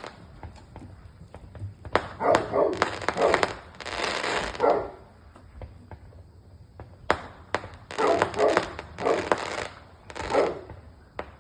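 A dog barking in two bouts of repeated barks, with a quieter pause between them, at fireworks; sharp pops of the fireworks are heard in between.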